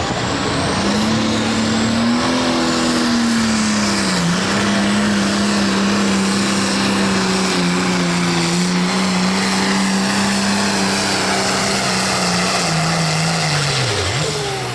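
International 1066 pro stock pulling tractor's turbocharged diesel engine at full throttle under the load of the sled, with a high whine above it. The pitch holds steady apart from a brief dip about four seconds in, then drops away near the end as the pull is over.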